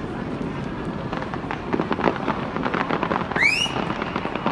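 Fireworks display going off: a steady low rumble with dense crackling and popping bursts from about a second in. A short rising whistle sounds about three and a half seconds in.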